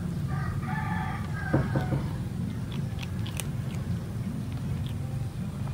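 A kitten crunching dry cat kibble: scattered sharp crunches as it bites the pellets. A steady low hum runs underneath, and a short pitched call sounds about half a second in.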